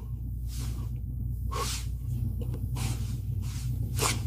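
Short hissing puffs, roughly once a second, over a low steady hum, from the soundtrack of an AI-generated Veo 3 clip made with experimental audio.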